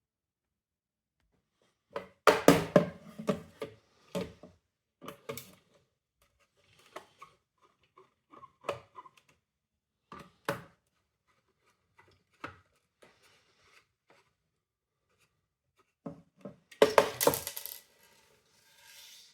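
Clicks, taps and clatters of plastic housing parts and small metal pieces, such as screws, being handled and set down while a window vacuum cleaner is taken apart. The knocks come at irregular moments, with the busiest clatter about two seconds in and again near the end.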